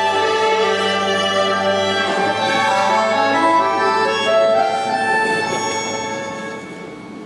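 Orchestra playing an instrumental passage, bowed strings carrying a slow melody over held bass notes, growing softer near the end.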